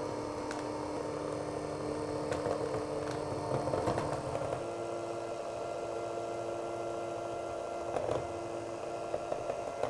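A 9-speed electric hand mixer running steadily, its wire beaters stirring cocoa powder and milk into thick cake batter. Its motor hum steps up slightly in pitch about halfway through.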